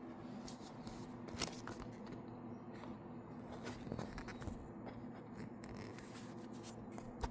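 Faint clicks and light scraping of hands handling the build plate inside a 3D printer's chamber, with a sharper click about a second and a half in and another near the end, over a steady low hum.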